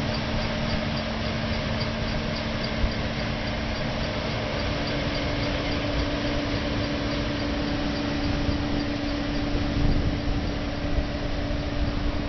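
Cotton stripper harvester running steadily in the field: a constant engine hum over an even rush of machinery noise.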